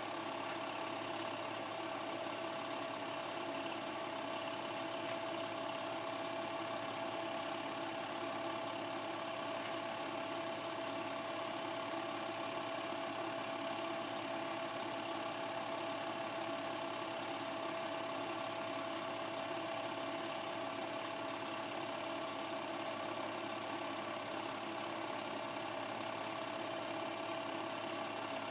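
Film projector running steadily: a fast, even mechanical clatter with a constant tone.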